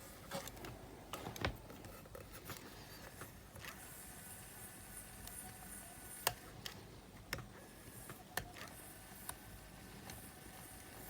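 Faint, scattered small clicks and taps from handling a portable cassette player's mechanism while its capstan is cleaned, about seven sharp ones spread over the stretch, over a low steady background.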